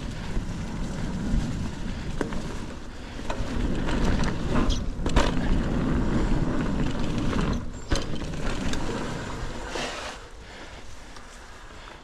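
Mountain bike being ridden over a dirt trail: a steady rumble of tyres and wind on the microphone, with sharp knocks about five and eight seconds in, easing off near the end.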